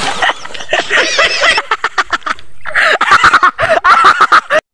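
A person's loud voice yelling in wavering, broken-up cries.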